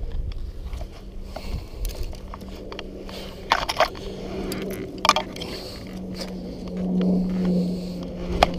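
Footsteps clambering over a pile of dry dead branches and brush: scraping and crunching, with sharp snaps of dry wood about three and a half seconds in, around five seconds in, and near the end. A steady low hum runs underneath.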